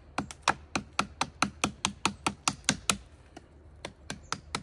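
Rapid light chops of a Knives by Nuge Bruin CPM 3V scandi-grind bushcraft knife into a thin stick of very hard wood: sharp knocks at about four or five a second, pausing for about a second near the end before starting again.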